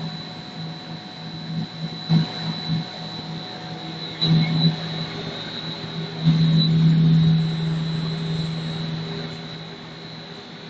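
Snack-food extruder running. Its motors hum steadily under a constant high whine, with a few knocks, and the hum swells for a couple of seconds about six seconds in.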